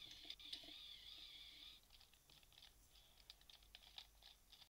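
Near silence with faint scattered clicks and ticks, over a faint high hiss that stops about two seconds in.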